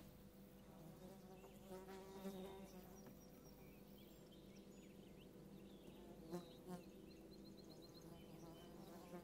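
Faint buzzing of flying insects, with two louder passes, about two seconds in and about six seconds in.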